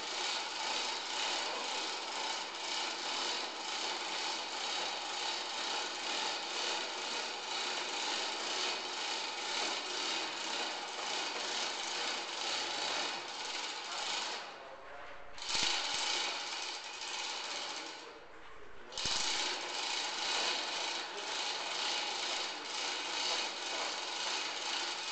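Tool work on wood: a continuous rasping, grinding noise that breaks off twice, briefly, a little past the middle.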